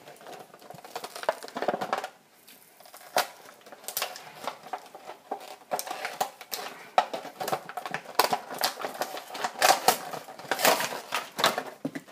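Plastic blister pack and cardboard backing of a toy package crinkling, crackling and tearing as it is pried open by hand, in a run of irregular crackles and snaps with a short lull about two seconds in.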